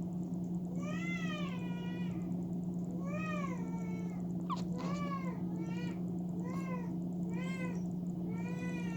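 A cat meowing over and over, short mews that each rise and fall in pitch, about one a second, over a steady low hum.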